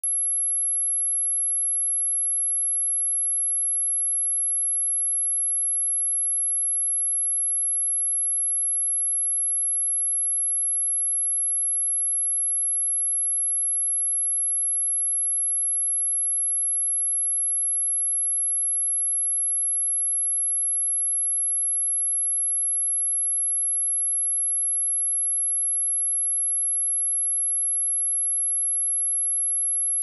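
A single steady high-pitched sine-wave test tone at 11108 Hz, held without change: a pure electronic tone for testing speakers, also sold as a speaker cleaner to shake out water and dust.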